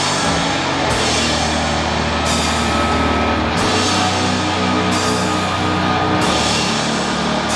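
Doom metal band playing live, with heavily distorted guitars and bass holding long low notes under a slow beat. A crash cymbal is struck about every second and a quarter.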